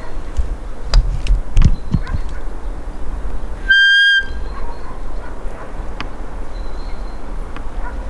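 Roe deer call blown by the guide to imitate a doe's fiep and lure a buck in the rut: one short, high, steady whistle about four seconds in. Under it run a steady low rumble and a few knocks near the start.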